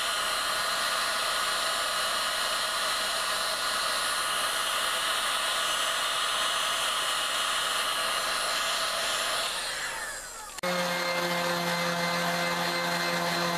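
Heat gun blowing steadily while melting HDPE plastic into the wood, winding down about ten seconds in. A random orbital sander then starts up and runs steadily with a lower hum.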